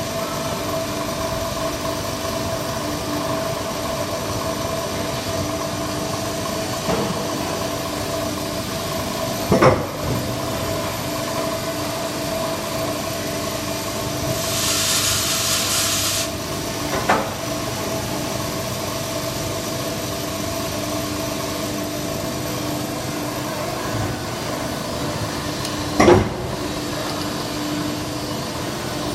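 Automated injection-robot feeding machine running with a steady, even hum. Three short knocks sound about eight seconds apart, and a hiss lasts about two seconds partway through.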